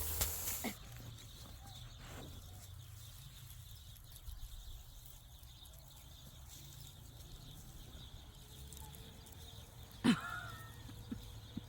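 A farm animal's short call about ten seconds in, over a faint low hum.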